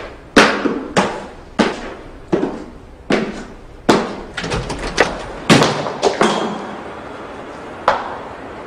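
A series of about a dozen sharp knocks or thuds at uneven intervals, each with a short echoing tail, then one last knock near the end.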